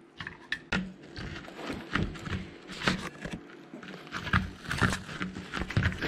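Harris's hawk working a wooden food puzzle with its beak and talons: irregular wooden and plastic knocks, clicks and scrapes as the pieces are pecked and shifted.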